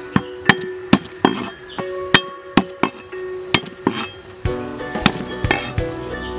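Cleaver knife chopping garlic cloves on a wooden cutting board, sharp knocks about twice a second.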